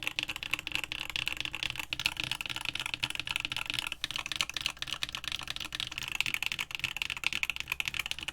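Fast, continuous typing on an Alchemist Keyboards custom mechanical keyboard with no foam, no added weight and no mods: a dense, steady stream of keystrokes.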